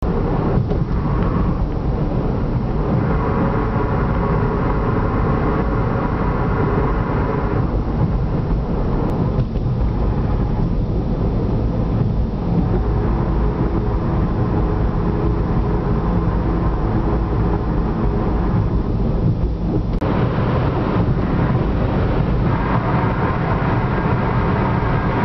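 Weird hollow humming: a drone in several steady tones over a continuous low rumble, swelling for a few seconds about three seconds in and again near the end.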